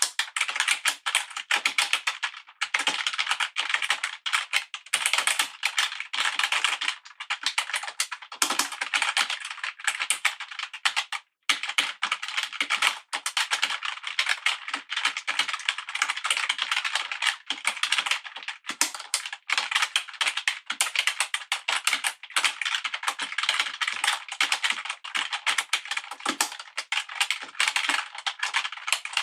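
Fast, continuous typing on a computer keyboard: a dense clatter of key clicks, briefly stopping about eleven seconds in.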